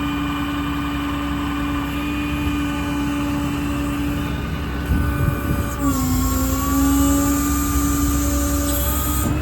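Truck-mounted hydraulic service crane running, its pump giving a steady whine over the diesel engine. About six seconds in there is a knock, and the whine drops in pitch and grows louder with added hiss as a crane function takes load.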